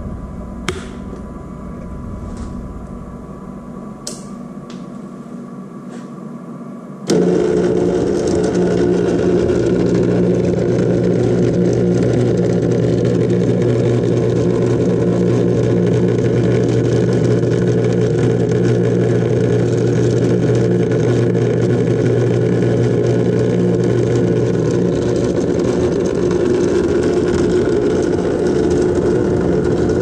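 Thermal Dynamics Cutmaster 52 plasma cutter powered up. A few clicks come first, then about seven seconds in a loud, steady clattering buzz starts suddenly and keeps on. This is the sound of what appears to be a bad contactor.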